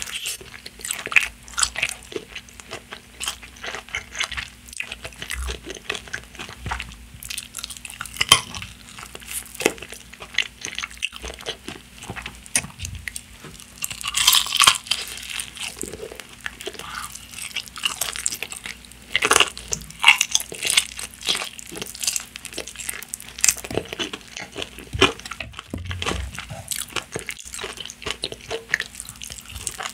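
Close-up eating sounds of crispy fried chicken: crunchy bites into the coated crust and chewing, with a louder run of crunching about halfway through.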